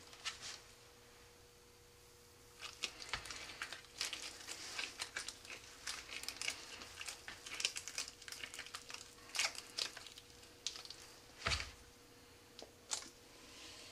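Crackly rustling and small clicks of gloved hands working glue around a glassine-wrapped rocket-motor propellant grain, spinning it in the hand, with a single soft knock near the end.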